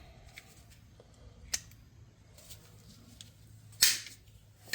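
Tubing cutters snipping through new rubber fuel hose: a small click about a second and a half in, then one loud, brief cut near the end.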